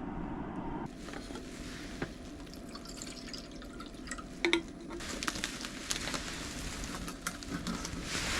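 Water trickling and splashing, with scattered small knocks and clicks; it grows louder and denser over the last few seconds.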